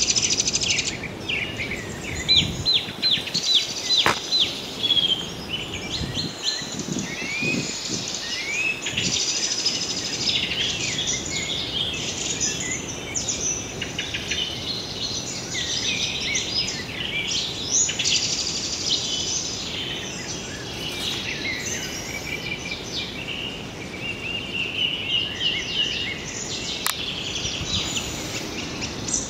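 Many small birds chirping and trilling at once: a dense chorus of short, high chirps over a steady outdoor hum, with a few low knocks a few seconds in.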